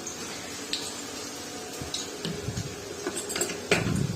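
Onions frying in hot oil in a kadai, a soft steady sizzle, with a few light clicks and knocks of a utensil against the pan toward the end.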